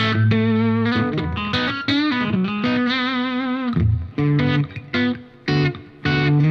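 Electric guitar played through a Scarlet Vibe modulation pedal into a Diezel Schmidt amp: held notes and slides with a slow wavering shimmer, then short separate notes near the end.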